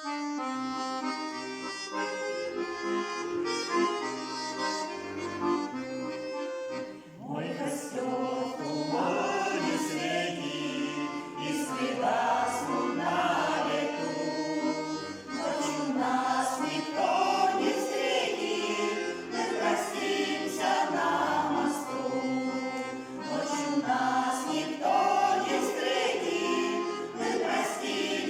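An accordion plays a short introduction of held chords over a repeating bass. About seven seconds in, a small vocal ensemble begins singing a Russian romance in unison and harmony over the accordion.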